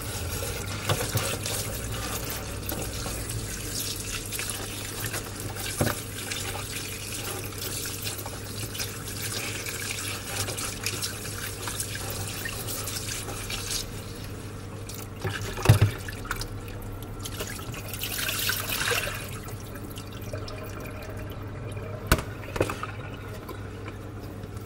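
Kitchen tap running into a plastic bowl of raw chicken pieces in a stainless steel sink, with hands rubbing and sloshing the pieces in the water. The tap stops about halfway through. A few sharp knocks and a short splash of water follow.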